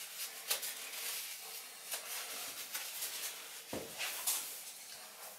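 Faint rustling and small clicks of a silicone smoothing tool being wiped clean with tissue, with one soft knock about four seconds in.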